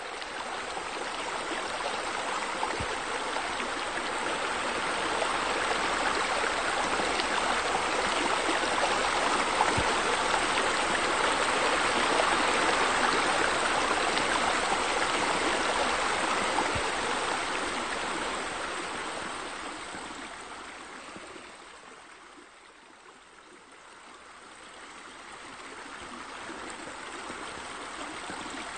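Running water, a steady rush that grows louder toward the middle, dips about three-quarters of the way through, then rises again.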